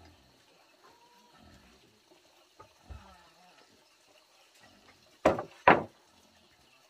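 Two sharp wooden knocks about half a second apart, about five seconds in: a planed plank being laid down onto a stack of planed boards.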